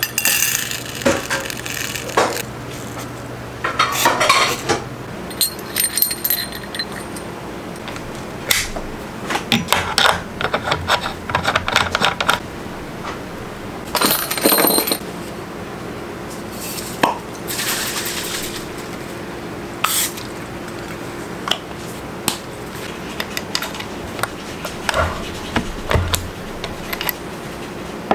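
Clinks, taps and knocks of glass jars, metal jar lids and cartridge cases being handled on a bench while reloading cartridges. A few of the metallic clinks ring briefly, about five seconds in and again about halfway.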